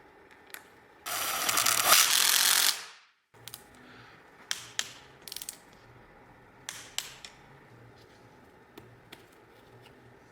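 A loud hiss lasting about two seconds and fading away, followed by a run of sharp metallic clicks and light taps, as of hand tools working on metal parts.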